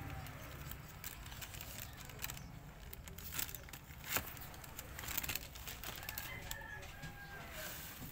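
Rustling and clicking of packaging being handled, with a sharp click about four seconds in.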